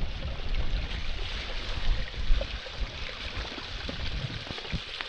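Gusting mountain wind buffeting the microphone: an uneven low rumble under a steady rushing hiss.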